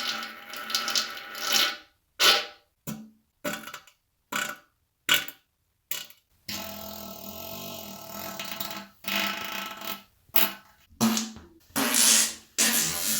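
A rapid string of separate human farts, spliced one after another with dead silence between them. Most are short, and one drawn-out fart lasts a couple of seconds around the middle.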